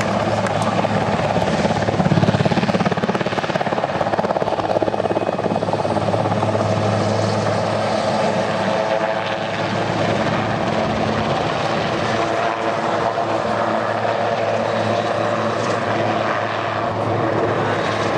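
Agusta-Sikorsky HH-3F Pelican helicopter flying past in a display pass, its twin turboshaft engines and main rotor running with a steady drone and rotor chop. It is loudest about two seconds in, as it passes closest.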